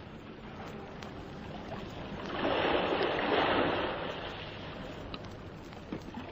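Sea waves washing onto a beach, a radio-drama sound effect: the wash swells about two and a half seconds in and falls back again.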